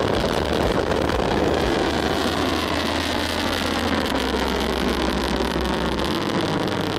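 LandSpace Zhuque-2 methane-fuelled rocket climbing after liftoff: the steady, dense rushing noise of its engine exhaust.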